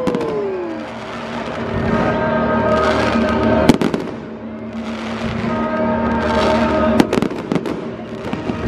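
Fireworks display: a falling whistle at the start, then crackling and hissing with two sharp bangs, about four and seven seconds in, over sustained music.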